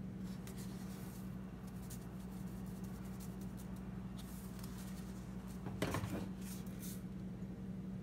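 Paprika shaken from a spice shaker onto flour in a plastic zip-top bag: a series of short, soft hissing shakes, with a louder handling noise about six seconds in. A steady low hum runs underneath.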